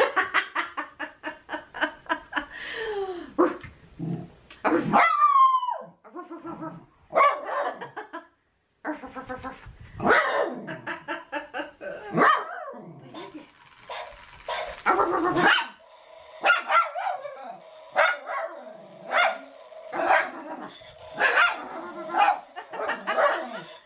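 Barking in quick repeated runs: a battery-operated skeleton dog toy's recorded barks, mixed with miniature schnauzers barking back at it.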